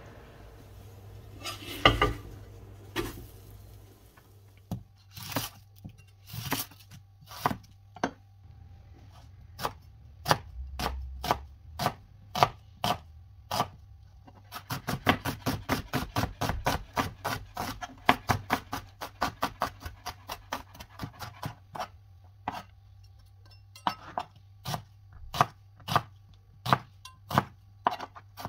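Knife chopping on a cutting board: single cuts spaced a second or so apart, then a fast run of quick strokes from about halfway through, slowing again near the end.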